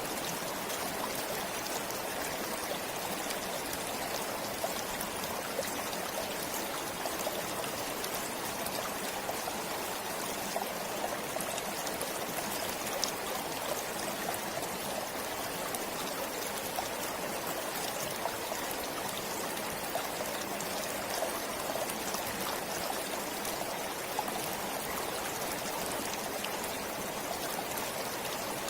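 Forest stream flowing steadily, an even rush of running water with small scattered splashes.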